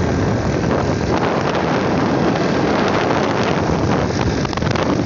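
Wind buffeting the phone's microphone: a loud, steady rush and rumble.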